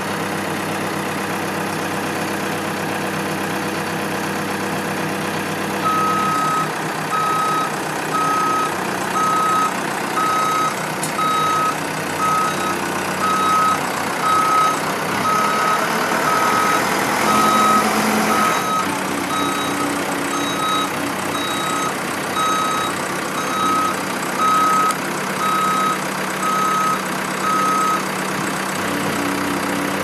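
2004 JCB 214 backhoe loader's diesel engine running under throttle while the machine moves. Its back-up alarm beeps about once a second, starting about six seconds in and stopping shortly before the end.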